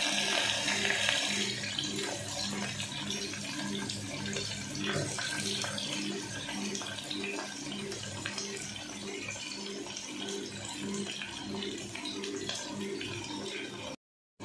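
Sliced onions sizzling in hot oil in an open aluminium pressure cooker: a steady hiss with small crackles, louder in the first second or so. Under it runs a faint low hum that pulses a couple of times a second.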